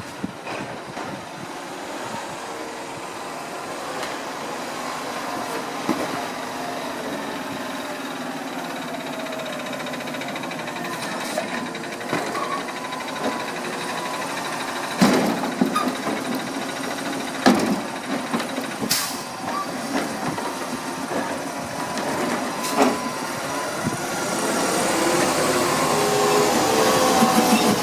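Garbage truck running, with a few sharp clanks in the middle and the engine growing louder near the end.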